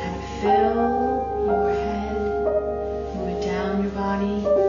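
Sound-meditation music: a didgeridoo's steady low drone under sustained melodic tones that move to a new note about once a second, one of them gliding upward about half a second in.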